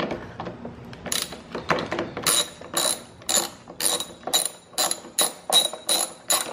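Ratchet wrench turning out a T30 Torx screw, its pawl clicking once on each back-swing. The clicks start about a second in at roughly two a second and get quicker toward the end as the screw loosens.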